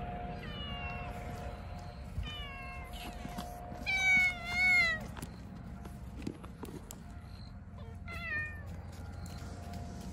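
Cat meowing: about five meows, each falling in pitch, the two loudest back to back about four seconds in.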